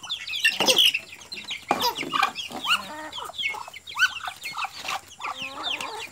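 Poultry calling at feeding: a steady chorus of many short, high peeps with some lower calls mixed in. Two brief, louder noises break in about one and two seconds in.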